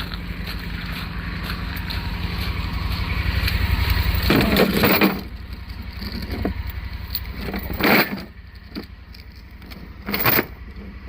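A vehicle engine running under load during an off-road recovery pull. It grows louder over the first five seconds, then drops off, with a few short, louder noises a little later.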